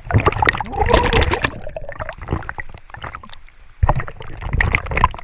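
River water splashing and gurgling around a camera bobbing at the surface, dipping in and out of the water, in two bursts of sloshing: one in the first second and a half and another near the end.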